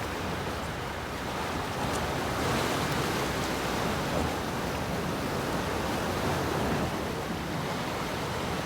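Sea waves washing steadily against the shore, with wind.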